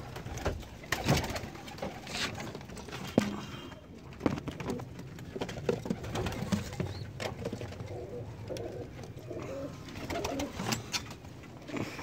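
Domestic pigeons cooing, with scattered sharp knocks and clicks throughout, the loudest about one second and about three seconds in.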